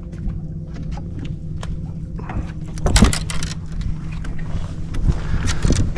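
Steady low hum of a boat motor, with scattered knocks and clatter over it; the loudest knock comes about three seconds in, and more clatter follows near the end.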